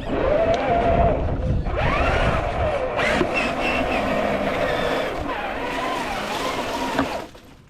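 Traxxas TRX-4 RC crawler's electric motor and geartrain whining, the pitch rising and falling with the throttle as it drives over rough ground. The whine stops abruptly near the end.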